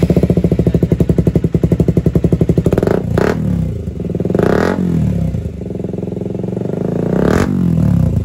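KTM Duke 125's single-cylinder engine running with a loud, fast exhaust beat through an aftermarket short-can slip-on silencer held onto the header pipe by hand, blipped up and back down about three times.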